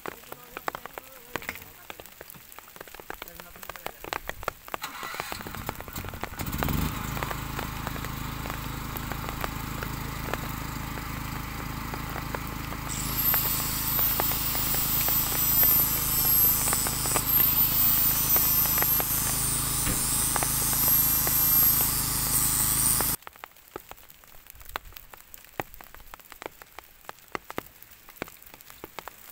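An Isuzu ten-wheel truck's diesel engine revs up quickly and is held at steady high revs as the loaded truck tries to pull out of the mud. A high whine rises and falls over it from about halfway, and the engine cuts off sharply. Rain patters and crackles before the engine starts and after it stops.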